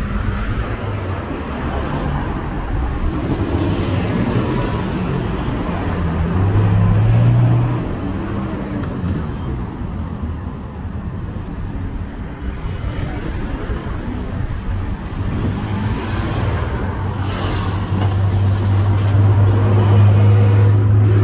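Heavy road traffic of cars and buses running past on a multi-lane city avenue, a steady engine drone under tyre noise. The drone grows louder as a bus passes close, about six seconds in, and again near the end.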